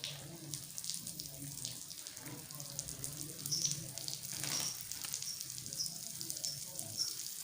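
Water running and splashing as pigeons bathe in it. In the second half a short high note repeats about every half second.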